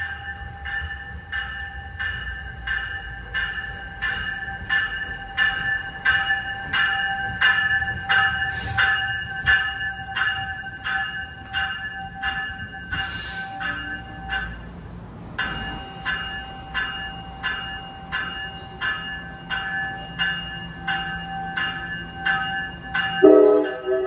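NJ Transit train's bell ringing steadily, about two strikes a second, over the low rumble of the train pulling into the station. Near the end a train horn sounds.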